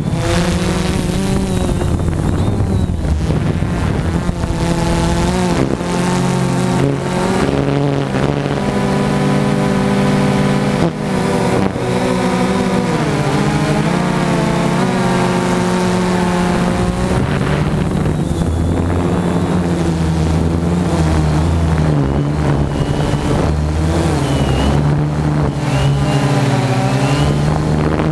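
Motors and propellers of a small radio-controlled aircraft heard from its onboard camera: a steady buzzing whine whose pitch rises and falls as the throttle changes.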